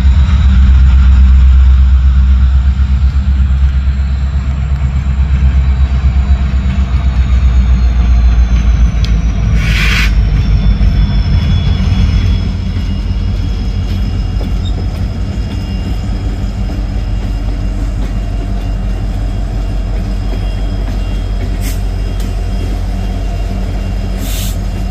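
EMD SD70M diesel-electric locomotive's two-stroke V16 engine running under power as it pulls empty covered hopper cars along at low speed: a deep, steady rumble with a thin high whine that slowly falls in pitch. The sound drops noticeably in level about halfway through.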